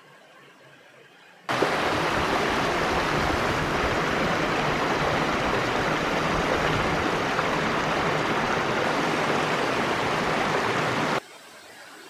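Water rushing down a small rocky waterfall in a steady, even rush. It starts suddenly about a second and a half in and stops suddenly near the end.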